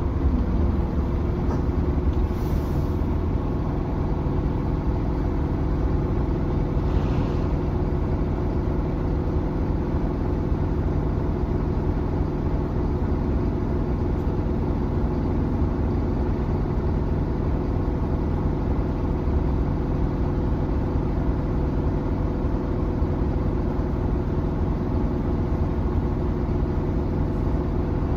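Optare Versa single-deck bus's engine running steadily with a low drone and rumble, heard from inside the passenger saloon.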